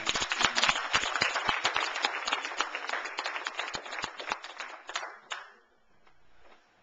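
Congregation applauding, with many people clapping at once, stopping fairly suddenly about five seconds in.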